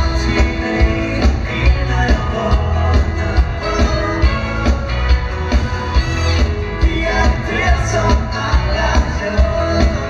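A dansband playing live: a drum kit keeping a steady beat about twice a second under electric guitar, bass guitar and keyboards.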